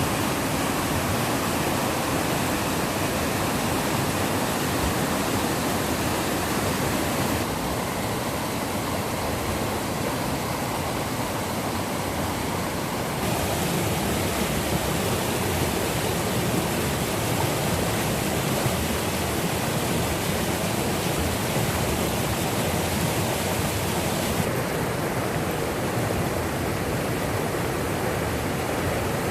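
Rushing water making a steady, dense hiss. Its upper range drops abruptly and slightly twice, for a few seconds about a quarter of the way in and again near the end.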